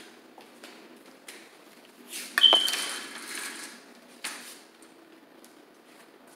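Vertical window-blind slats clattering and rustling for about a second and a half, with a sharp ping as they knock together, then one more short clack. Light footsteps tick on a hard floor before and after.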